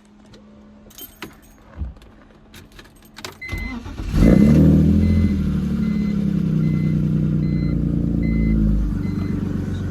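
Keys rattling and clicking, then the 2000 BMW 323Ci's inline-six cranks briefly and catches about four seconds in. It runs at a cold-start fast idle that eases down a little near the end. An electronic warning chime beeps repeatedly as it starts.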